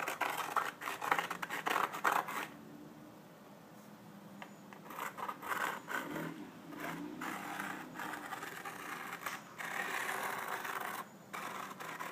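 Scraping and rubbing of a pencil and hands on a subwoofer's carbon-fiber dust cap as its edge is marked out, in irregular strokes with a lull a few seconds in.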